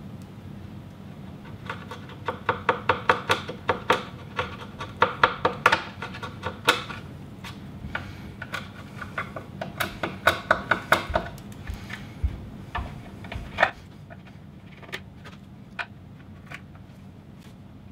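A chisel scraping old glue out of the broken joints of a wooden cabinet door frame, in runs of short quick strokes, several a second, that thin out to scattered single strokes in the last few seconds.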